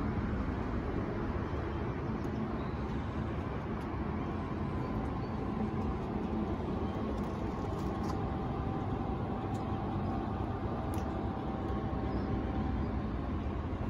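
Steady background noise of distant city street traffic, even throughout, with a few faint ticks about halfway through.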